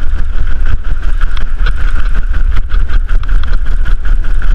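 Mountain bike rolling down stone steps and cobbles, rattling and knocking over each bump, under a heavy wind rumble on the helmet camera's microphone.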